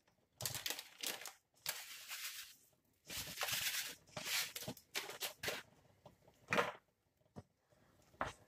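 Plastic packet rustling in short, irregular bursts as a seasoning is shaken out over a pot of vegetables in sauce. A wooden spoon knocks against the pot near the end.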